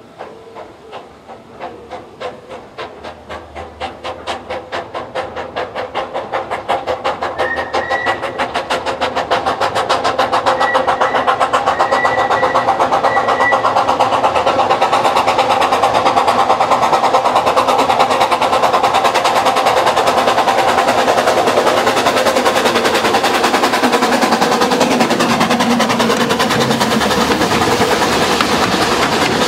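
Quarry Hunslet 0-4-0T narrow-gauge steam locomotive working a train, its exhaust beats quickening and growing louder as it approaches and passes close by, with wheels clattering over the rails.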